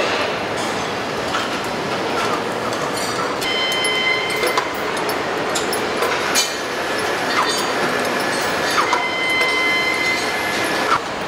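Assembly-plant din on a truck production line: a steady background rumble and hiss with scattered metallic clicks and clanks, brief squeaks, and two short high steady tones, the first about four seconds in and the second near the end.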